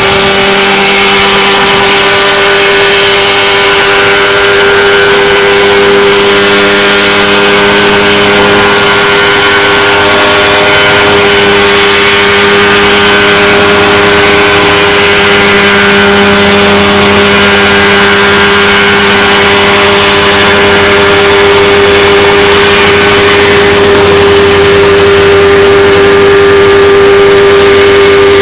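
Mosquito XE microlight helicopter's two-stroke engine and rotor running loud and steady at flight power as it lifts into a low hover just above the ground.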